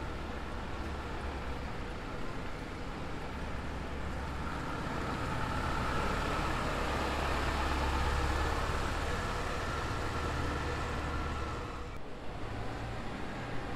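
Keifuku Bus route bus running past, its engine hum growing louder to a peak past the middle and then easing, with a steady higher tone over it. The sound changes abruptly near the end.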